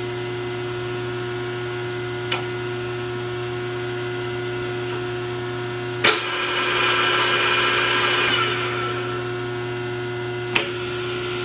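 Sunlike RD-750 radial drill press running, with a steady motor hum. Switch clicks come about two seconds in, about six seconds in and again near the end; after the middle click a louder gear whine runs for about three seconds, then fades back to the hum.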